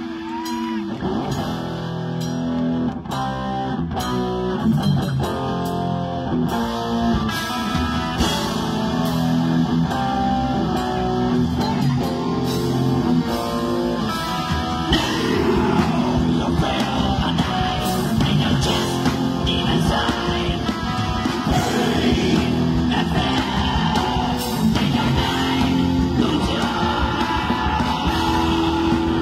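Metal band playing live: electric guitar riffs over bass and drums, with the drums coming in harder a few seconds in.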